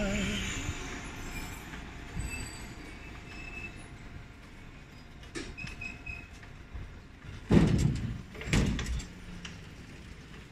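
Street traffic: a steady rumble of road noise and passing motor vehicles, with two louder rushes of noise about seven and a half and eight and a half seconds in.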